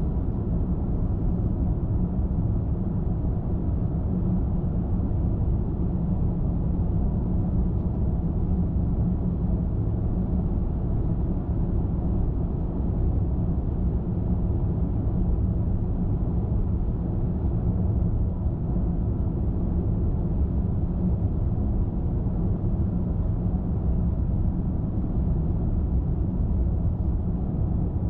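Steady road noise of a car driving at an even speed: a constant low rumble of tyres and engine, with no change in pitch or level.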